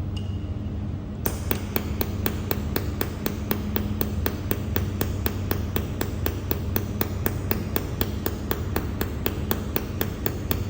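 Pulsed YAG laser welder firing a steady train of sharp clicks, about four to five a second, as its flash lamps discharge for each weld pulse. The clicks start about a second in, over a steady low hum from the machine.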